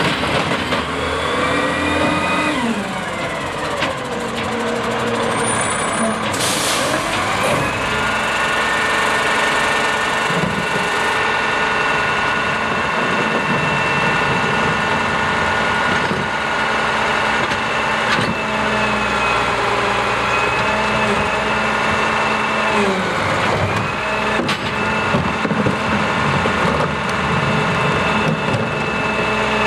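Front-loading garbage truck's diesel engine slowing as the truck pulls up, with a short air-brake hiss about a quarter of the way in. The engine then runs at a raised, steady speed, the high idle that drives the packer hydraulics, dipping briefly about three-quarters through and picking up again.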